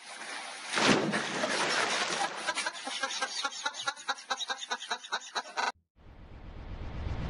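Water splashing in an inflatable paddling pool as a man drops into it, followed by a quick run of evenly spaced clattering strokes. It cuts off about six seconds in, and a rising whoosh begins to swell.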